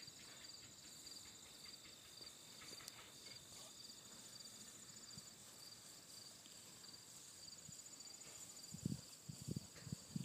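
Insects chirring steadily in the grass, a faint high pulsing trill. A few soft low thumps come in near the end.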